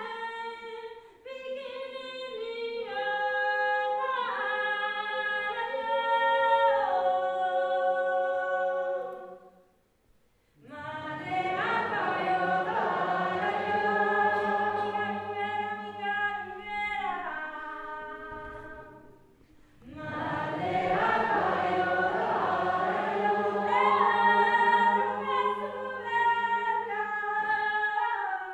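A small group singing a cappella, in three long sung phrases separated by brief pauses. The voices sound fuller after the first pause.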